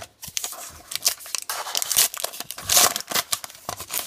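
A baseball card pack wrapper being crinkled and torn open by hand, with irregular crackling that is loudest about two and three seconds in.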